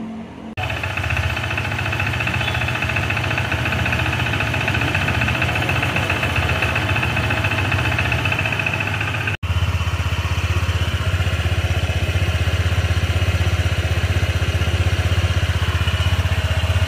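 Honda ADV 160's single-cylinder engine idling with a steady high-pitched rattle from the CVT, the 'lagatik' that makes a two-month-old, 800 km scooter noisy. About nine seconds in it cuts to the same engine idling after a CVT cleaning, greasing, sanding of the clutch bell and tightening of the nuts, with less of the high rattle and a stronger low engine note.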